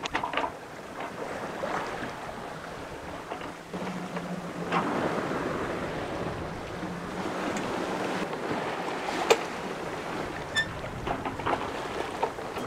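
Sea water washing along the hull of a sailboat under sail, with wind on the microphone. A single sharp click about nine seconds in.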